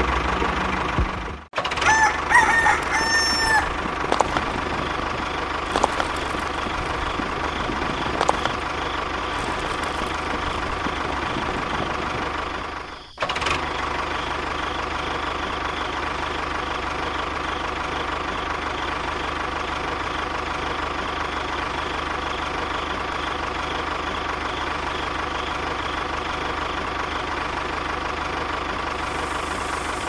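A tractor engine running steadily, with a rooster crowing once about two seconds in. The engine sound cuts out abruptly for a moment about a second and a half in, and again about thirteen seconds in.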